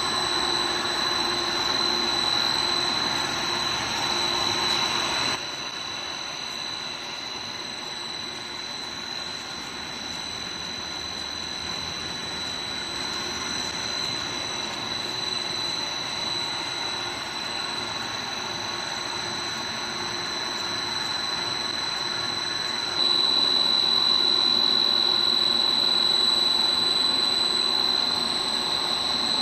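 Pet-snack food extrusion line running: a steady mechanical hum from the extruder's electric motor and gearbox, with a constant high-pitched whine. It is louder at the start, drops after about five seconds, and grows louder again about two-thirds of the way in.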